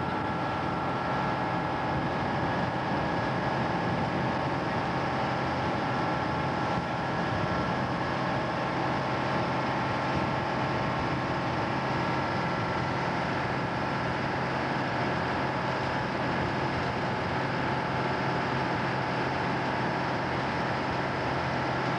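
Twin V-16 Detroit Diesel two-stroke engines of an old torpedo retriever boat running steadily under way: a constant drone with a low hum and a few steady higher tones.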